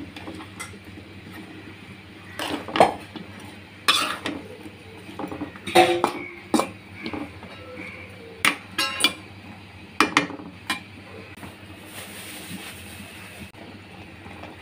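A steel spatula clinking and scraping against a pan while stirring cut pointed gourd and potato pieces: about ten irregular knocks and clinks.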